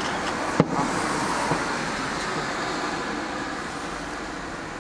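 A firework shell bursting with a sharp bang about half a second in, its boom echoing and slowly fading, with a fainter thump about a second later.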